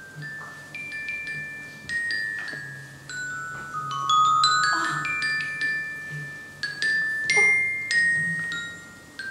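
Sparse, slow notes struck on a metallophone such as a glockenspiel, each one ringing on after it is hit, with a quick rising run of notes about halfway through.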